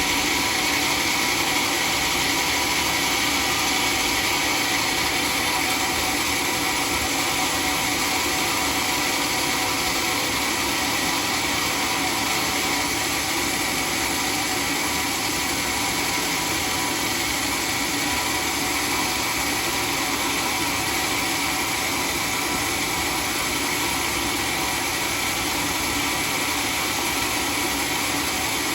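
Homemade circular-blade sawmill running with a steady, even noise.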